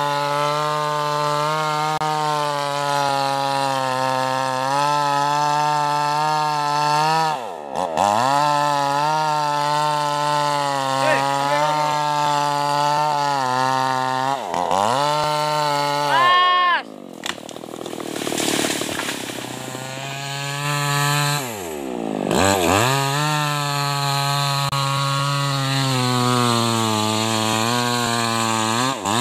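Tuned-up New West 588 two-stroke chainsaw at full throttle, cutting into a hardwood trunk. Its pitch dips and recovers several times. About halfway through it revs up sharply, then gives way to a few seconds of quieter, rougher noise before it is back at steady cutting speed.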